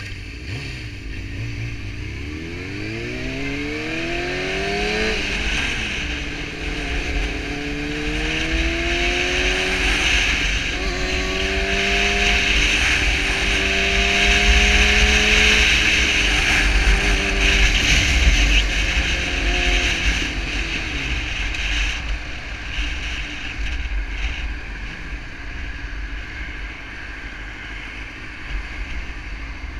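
600cc inline-four sport motorcycle engine accelerating away, its pitch rising and then dropping at each of a few upshifts before it settles into steady cruising. Heavy wind rush on the camera microphone runs under it, strongest in the middle.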